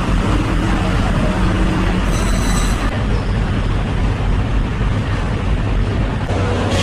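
Steady, loud noisy din of a working fish market hall, with a brief high-pitched tone a little over two seconds in.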